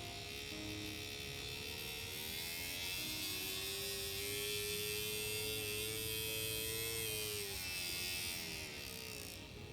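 Small electric motor of an N gauge model train (TOMIX M-9 power unit) running with a buzzing whine that rises in pitch, holds, then falls as it slows and stops near the end.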